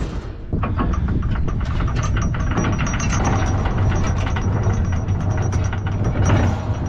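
Rapid ratcheting clicks from the mast-lowering gear as a Dutch sailing barge's counterweighted mast comes down in its tabernacle, starting about half a second in, over a steady low hum.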